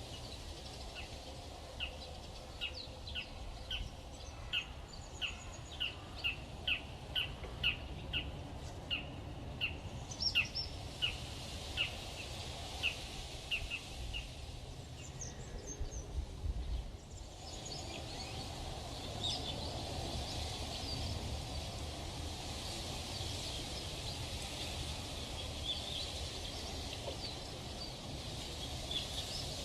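A bird repeating one short, high chirp about twice a second for the first half, over steady outdoor background noise. Partway through the sound changes to a denser steady hiss with scattered fainter bird chirps.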